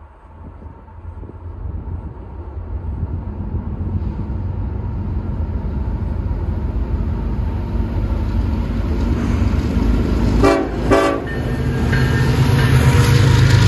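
Two Norfolk Southern diesel locomotives leading a loaded coal train approach and pass, their low engine rumble growing steadily louder. About ten seconds in, the locomotive horn sounds two short blasts.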